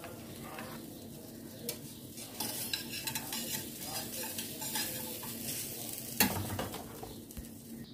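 Hot oil in a frying pan crackling and sizzling steadily with the heat just turned off, and one sharp click about six seconds in.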